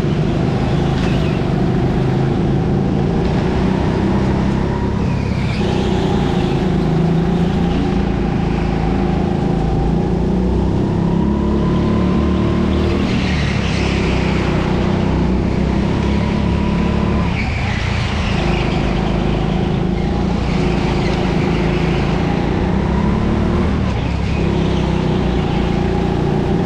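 Racing kart engine running hard at high revs on board. Its pitch dips and climbs back several times as the throttle is lifted and reapplied.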